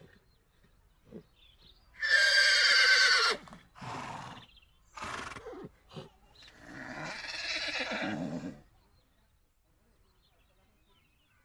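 A horse whinnying, the recorded call of a 3D horse model: one loud, wavering whinny about two seconds in, then two short breathy blows and a longer, lower breathy call near the middle.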